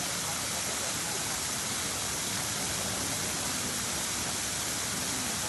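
Steady rushing of water spilling over the rim of a circular ornamental pool.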